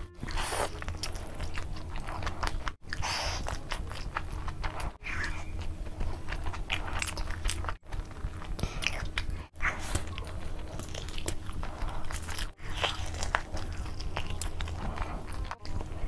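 Close-miked biting and chewing of spicy fried chicken lollipops in sauce, with many short crackles and clicks. The sound drops out briefly several times, every two to three seconds.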